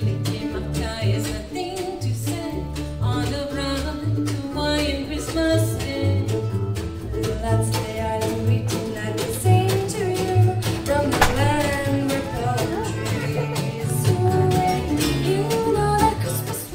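Live acoustic band playing a song with singing, acoustic guitars strummed over an upright bass keeping a steady beat.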